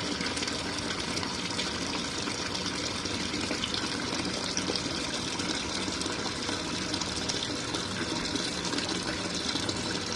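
Hot water running steadily from a sink faucet into the tub of a small portable RV washing machine as it fills.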